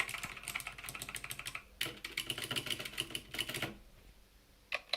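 Fast typing on a mechanical keyboard: dense runs of key clicks with a brief break, stopping a little before the end, then a few single keystrokes.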